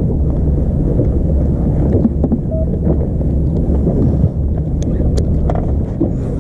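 Steady low rumble aboard a small fishing boat at sea, with wind buffeting the microphone.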